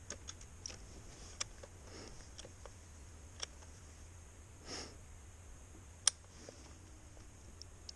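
Faint scattered clicks and taps over a low steady hum, with a short breathy sniff near the middle and one sharper click about six seconds in; no engine running or cranking.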